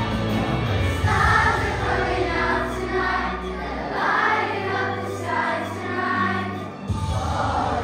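A group of children singing together in unison over instrumental backing music with a steady low bass line. The singing comes in strongly about a second in.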